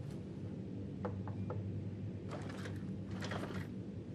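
Steady low room hum with three light clicks about a second in, then two bouts of rustling and scuffing as a man gets up from a desk chair.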